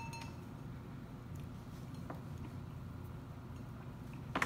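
Quiet room tone with a few faint clicks: a light clink of a drinking straw against a glass of water with a brief ring at the start, a faint tick about two seconds in, and one sharp click near the end.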